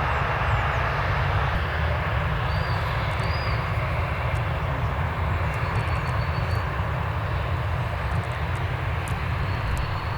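Jet airliner engine noise, a steady sound that eases off slightly toward the end.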